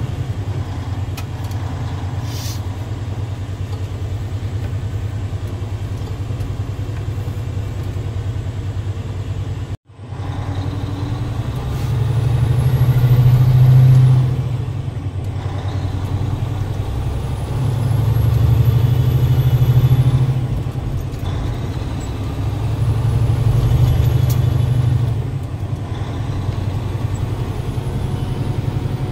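Freshly rebuilt Cummins ISX15 diesel engine of a semi tractor under way on its test drive. Its note climbs and drops back three times as the truck accelerates, with a faint high whistle rising and falling on each climb. The sound cuts out for an instant about ten seconds in.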